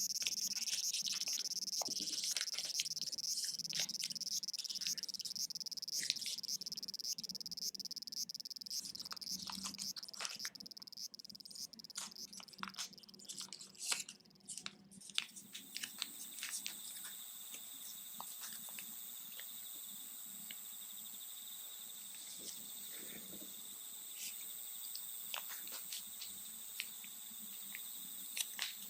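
Recorded Japanese cicadas singing in a steady, high, buzzing chorus that changes about halfway through to a thinner, higher song. Short crisp ticks and rustles of paper being folded and creased lie over it.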